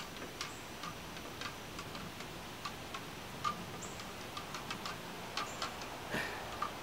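Plastic spoon stirring inside a plastic bottle, clicking faintly and irregularly against its sides a few times a second as corn syrup is mixed into dish-soap bubble solution.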